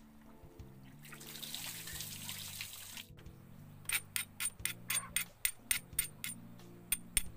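Water running for about two seconds and stopping abruptly, then a steady run of sharp knocks, about three a second, over soft background music.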